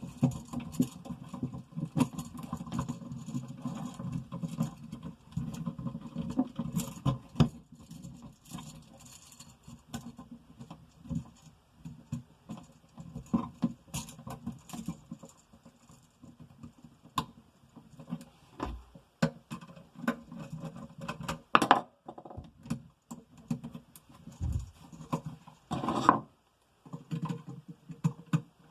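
Irregular clicks, taps and light rattles of hands handling electrical wires and small tools while wiring an outlet box, with a few louder knocks near the end.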